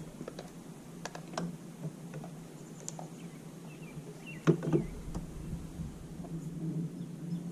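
Scattered small clicks and knocks of fishing tackle being handled in a boat, with a sharper knock about four and a half seconds in, over a steady low hum.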